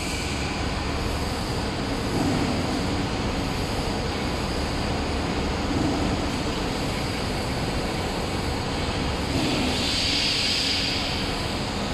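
Shelf roll forming machine running, a steady mechanical rumble with a low surge recurring about every three and a half seconds. A brief hiss rises and fades about ten seconds in.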